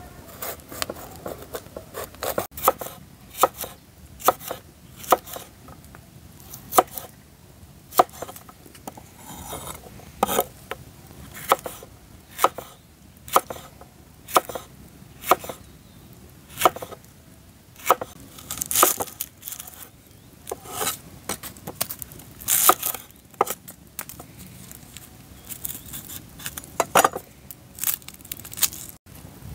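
Kitchen knife chopping a green bell pepper on a wooden cutting board: many short, sharp knocks of the blade on the wood, coming in uneven runs of several a second.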